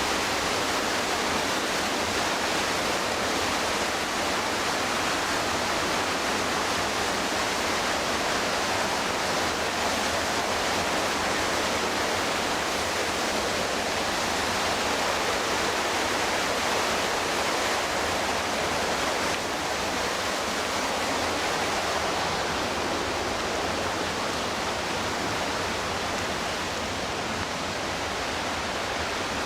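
Steady rush of whitewater on the McKenzie River, its level dipping slightly about two-thirds of the way through.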